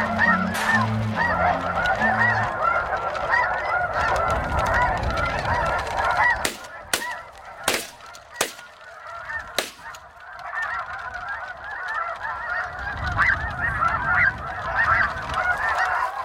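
A large flock of snow geese calling overhead: a dense chorus of high, yelping honks that thins out for a few seconds midway and builds up again near the end. A handful of short, sharp clicks come during the lull.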